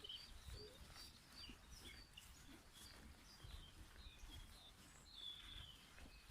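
Faint birdsong: many short, high chirps and twitters from small birds, over a low rumble.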